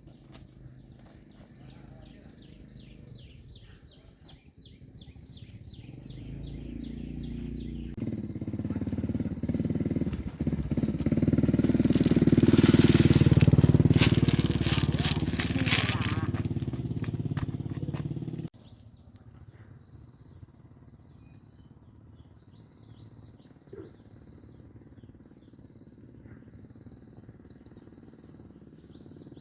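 A motor vehicle's engine growing louder to a peak and easing off, then cutting off suddenly, with faint bird chirps before and after it.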